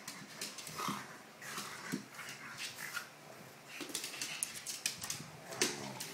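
A pug and a Labrador scuffling in a play-fight: short dog vocal noises come every second or so, with a stronger, more drawn-out one near the end, among quick sharp clicks and scuffles.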